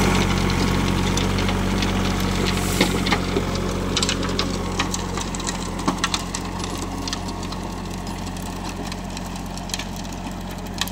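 A compact tractor's diesel engine runs steadily while pulling a PTO-driven rotary tiller (rotavator) through dry soil, with scattered sharp clicks and knocks. The sound gradually fades as the tractor moves away.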